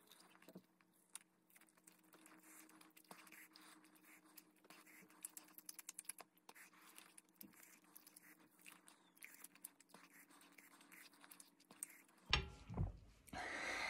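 Faint wet clicks and smacks of eating: a turkey leg being chewed and pulled apart by hand, over a low steady hum. Near the end two louder knocks, then a loud rush of breath.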